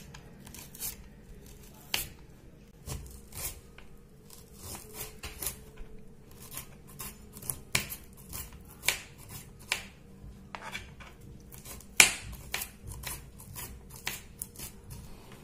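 Kitchen knife cutting spiny gourd into small pieces on a cutting board: irregular crisp cuts and taps of the blade on the board, with one sharper knock about twelve seconds in.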